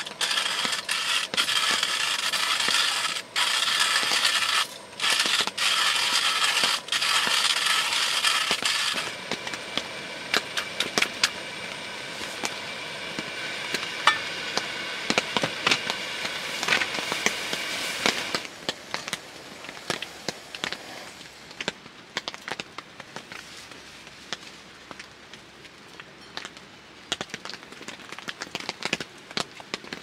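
Hand burr coffee grinder crushing beans, loud and crackly, in a few runs broken by short pauses for about the first nine seconds. After that it goes quieter, and rain patters on the tent fabric as scattered light taps.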